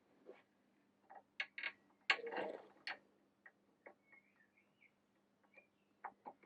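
Light metallic clicks and taps of steel bolts being handled and slotted through the motorcycle's engine mounts, with a brief scrape about two seconds in.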